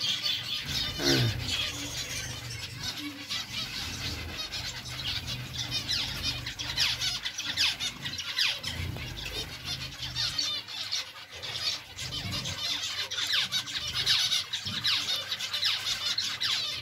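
A colony of small finches, zebra finches among them, calling all together: a dense, continuous chatter of many short high chirps overlapping.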